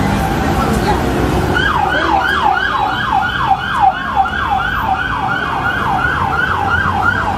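Electronic siren in a fast yelp, a rapid sweeping tone repeating about three to four times a second, starting about a second and a half in, over steady street noise.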